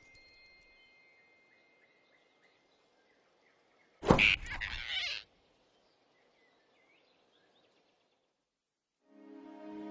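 Faint forest ambience with scattered bird chirps. About four seconds in, a sudden loud cartoon grab sound effect, a swish and thump lasting about a second, as the big rabbit snatches the flying squirrel in his fist. Then near silence, and soft orchestral music fades in near the end.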